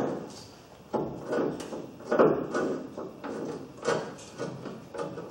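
Thin steel sheet-metal edge of a car's inner front wing being bent straight with pliers: a series of short scraping, clattering strokes, roughly one every half second to second.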